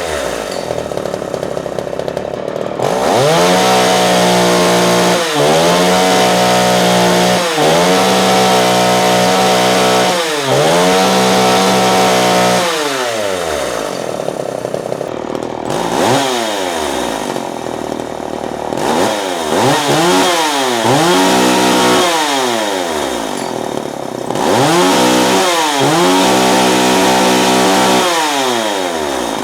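Vintage Stihl 015AV two-stroke chainsaw idling, then revved to full throttle over and over, each time held briefly at a high steady pitch and then dropped back to idle. It starts and runs strong and revs hard.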